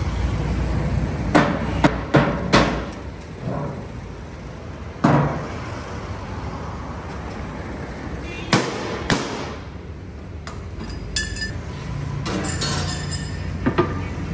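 Hollow metal clanks and knocks: empty cooking-oil tins being handled and set down, and a long ladle knocking in a large aluminium cooking pot, about nine strikes at uneven intervals over a steady low rumble.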